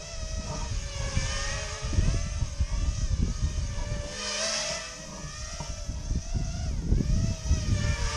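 Brushless motors of a small FPV multicopter whining in flight, the pitch wavering up and down with throttle. Low gusts of wind buffet the microphone.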